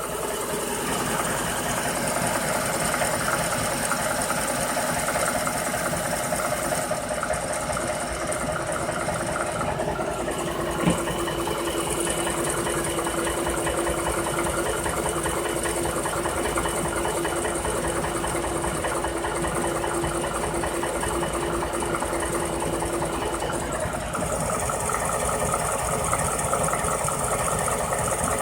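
Ford Coyote 5.0 V8 engine running steadily with a knock. A single sharp click sounds about eleven seconds in.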